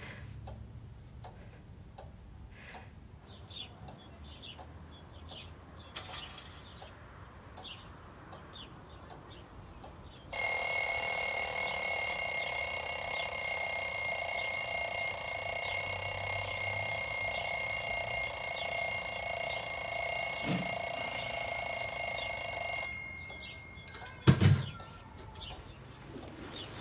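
A bell rings steadily for about twelve seconds without a break, starting abruptly about ten seconds in and cutting off suddenly. A short dull thump follows a second or so later. Before the ringing there is only quiet room sound with faint small clicks.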